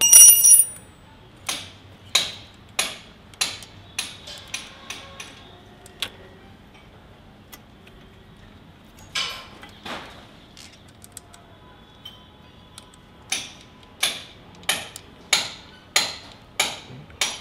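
Pliers clicking and tapping against the metal of a motorcycle clutch cable end and clutch lever while the cable is fitted. A sharp metallic clink with a short ring comes right at the start, then a string of light clicks about every half second, with a pause in the middle.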